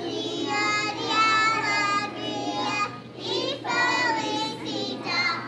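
A group of young children singing together, high voices holding notes with short breaks between phrases.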